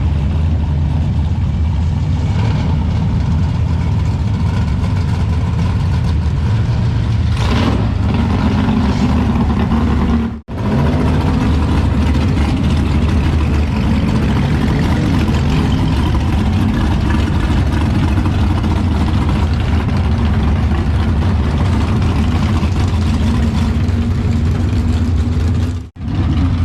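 Race car's V8 engine running steadily at a low idle, with a short hiss about seven seconds in; the sound drops out briefly twice.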